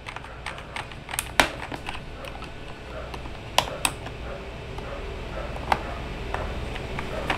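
Irregular plastic clicks and clacks from an Inplay SK960 red-switch mechanical keyboard being handled, keys pressed now and then. The loudest come about one and a half, three and a half, and five and a half seconds in.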